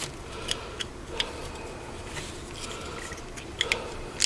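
Light clicks and taps of a small screwdriver and plastic parts as the float hinge pin is worked out and the white plastic float is pulled off a Briggs & Stratton black plastic carburetor, with a few sharper clicks close together near the end.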